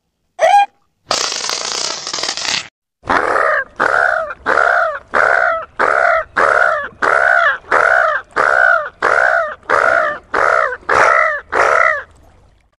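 Made-up baby sea-reptile creature voice, a sound effect built from stock animal calls. It gives a short call, then a hissing rasp of about a second and a half. Then comes a string of about fourteen evenly spaced short calls, each bending in pitch.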